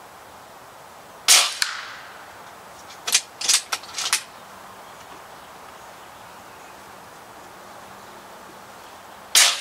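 Two shots from a Barra 1100Z .22-calibre PCP air rifle, one about a second in and one near the end. Each is a sharp crack with a short decay. Between them comes a quick run of four or five clicks as the action is cycled for the next pellet.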